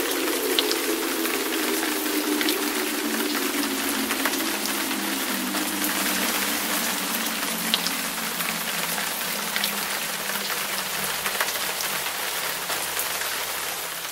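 Synthesized Federal Signal Thunderbolt siren with a 4/5-port chopper winding down: its chord of tones falls steadily in pitch and fades as the rotor coasts toward a stop. Under it runs a steady hiss with scattered small clicks.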